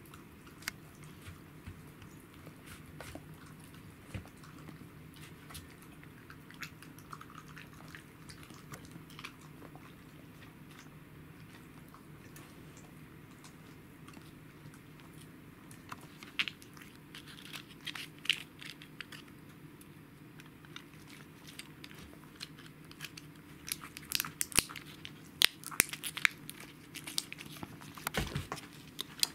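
Pembroke Welsh corgi eating from a ceramic bowl: soft chewing and licking with small clicks against the bowl, over a low steady hum. The clicks and crackles grow louder and sharper in the last few seconds.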